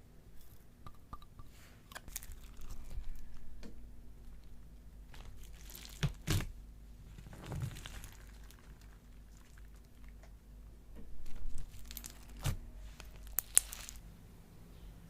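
Slime being handled close to the microphone: irregular crunching and crackling, with a few sharp snapping pops.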